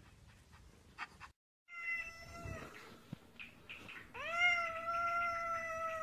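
Black-and-white tuxedo cat meowing: a short meow about two seconds in, then a long drawn-out meow that rises at its start and holds steady.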